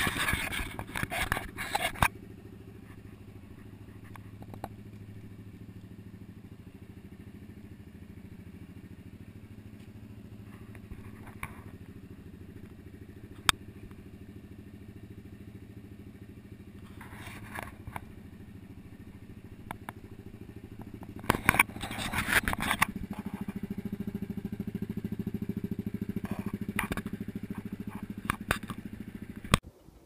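Yamaha Grizzly 700 ATV's single-cylinder engine with an HMF exhaust running at a steady idle. It gets louder for the last several seconds, with a few knocks and rustles of handling over it.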